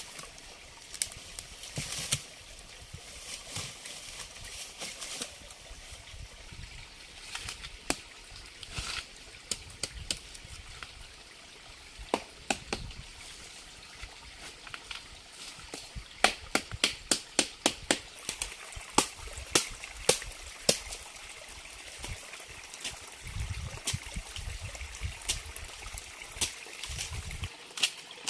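Water trickling steadily, with a scattered series of sharp clicks or snaps that come thick and fast for a few seconds past the middle.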